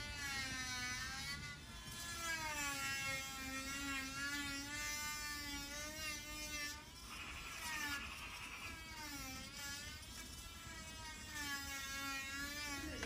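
Corded oscillating multi-tool running with a buzzing whine, its pitch wavering up and down as the blade plunge-cuts into a timber frame rail. A rougher rasp joins for a couple of seconds around the middle of the cut.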